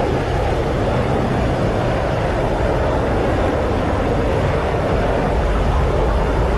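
Loud, steady rumbling noise with no tune, rhythm or voice in it, unchanging throughout.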